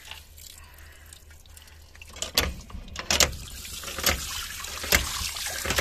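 Water pouring from a pump spout over a whole fish being rinsed by hand into a steel bowl. About two seconds in, sharp splashes start, roughly once a second.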